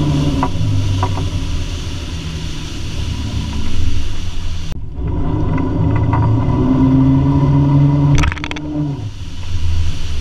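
Wake boat's inboard engine running under steady load over the rush of water from the wake, with a short clatter of knocks about eight seconds in; near the end the engine note falls away as the boat slows.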